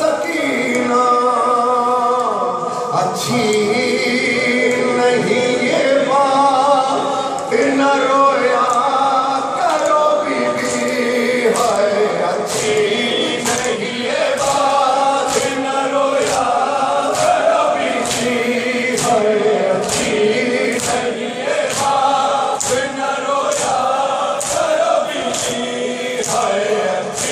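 A nauha (Shia lament) sung by a lead reciter with a crowd of men chanting along, over the rhythmic slaps of matam, hands striking bare chests in time, clearest in the second half at a little over one strike a second.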